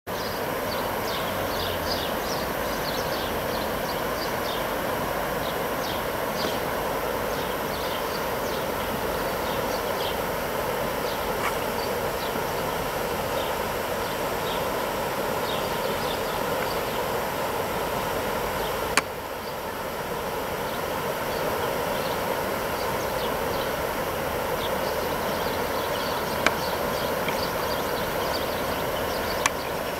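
Steady rush of river water flowing over shallows, with small birds chirping high above it throughout. A few sharp clicks: one about two-thirds of the way in, two near the end.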